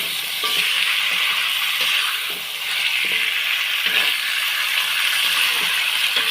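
Food sizzling steadily in a hot pan, with a metal spatula scraping and clinking against the pan every so often as it is stirred.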